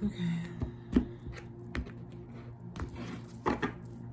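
A deck of oracle cards being handled and shuffled on a tabletop: four or five separate sharp taps and clicks as the cards knock against the table and each other, over a steady low hum.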